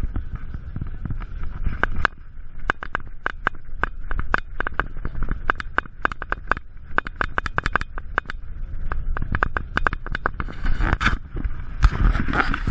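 Handling noise from a camera carried at the hip while walking: a steady low rumble with rapid, irregular clicking and scraping as clothing rubs against the microphone.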